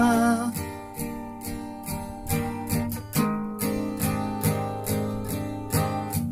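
Acoustic guitar strummed in a steady rhythm, several strums a second. A held sung note fades out about half a second in.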